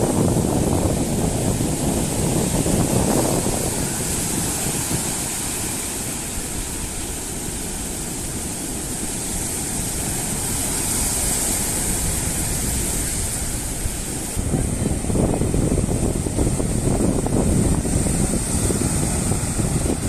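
Wind buffeting the microphone on the Mediterranean shore, over the steady wash of sea surf. The gusts grow stronger about two-thirds of the way through.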